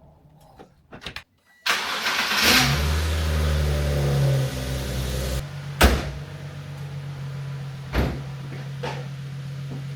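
Nissan 370Z's 3.7-litre V6 starting with a few clicks first, about two seconds in, flaring to a loud fast idle, then settling to a lower steady idle about halfway through, through a freshly fabricated cat-delete exhaust. Two sharp knocks sound over the idle.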